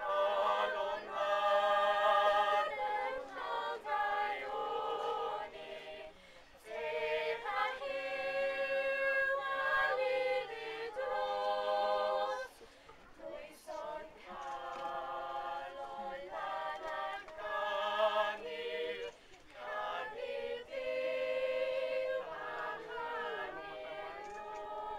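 A small mixed group of young men and women singing a Welsh song in unaccompanied harmony. The phrases are held on sustained notes, with short breaks for breath about six, thirteen and nineteen seconds in.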